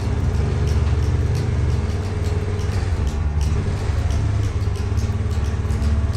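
Kawasaki GPZ900R's liquid-cooled inline-four engine running steadily.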